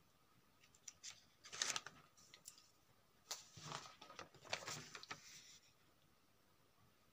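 Sheets of paper rustling and crackling as pages are handled and turned, in two bouts: one about a second and a half in, and a longer one from about three seconds to five and a half.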